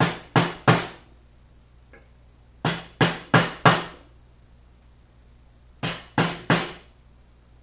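Mallet striking the handle of a wood chisel held upright in a board, chopping to deepen a cut. Three groups of sharp knocks about a third of a second apart: three blows, then four about two and a half seconds in, then three more near the end.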